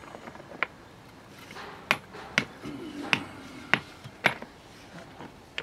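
Stones being knocked and fitted into the gaps of a stone wall: about six sharp clicking knocks, spaced roughly half a second to a second apart.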